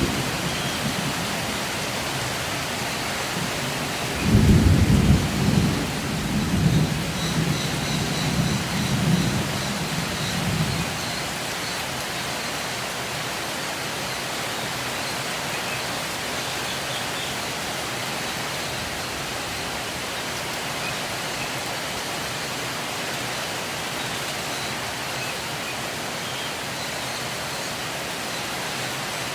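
A steady, noisy hiss with loud low rumbling bumps between about four and eleven seconds in, and a few faint, high chirps from lovebirds.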